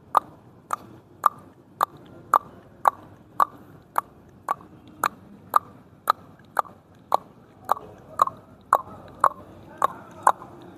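A person clicking the tongue against the roof of the mouth over and over, a hollow pop about twice a second at an even pace.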